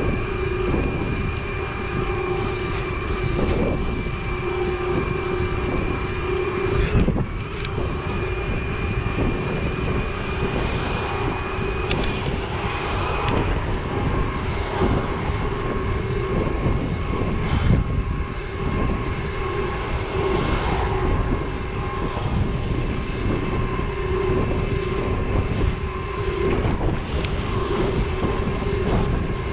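Trek Powerfly 4 e-bike riding along a wet road: steady tyre and wind noise with a constant whine from the motor, and an occasional knock from the bike.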